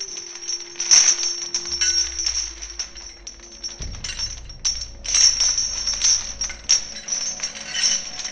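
Intro music with bright jingling, clinking percussion over a held note, with a low bass coming in partway through.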